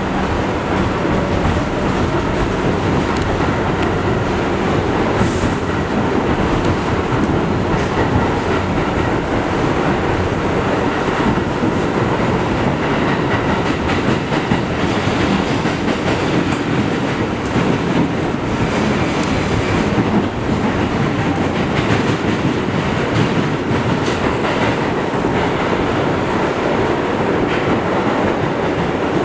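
Interior ride noise of a Bombardier R62A subway car running at speed through the tunnel: a steady rumble of wheels on the rails with scattered clicks. The train passes through a station without slowing.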